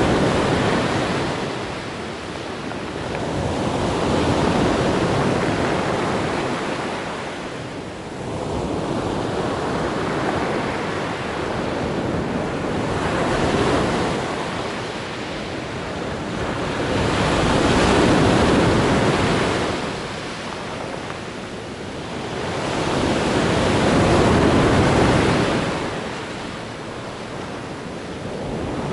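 Black Sea surf: waves breaking and washing on the shore, the noise swelling and ebbing every five seconds or so.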